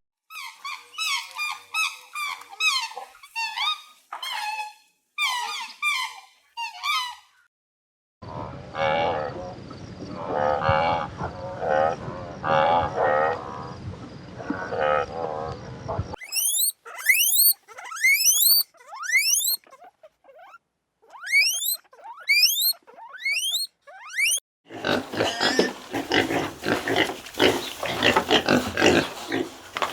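Four different animal calls in turn, split by short silences: high chirping, then lower calls over a steady hum, then quick rising whistled calls, then from about 25 seconds in a dense stretch of pig sounds that keeps going.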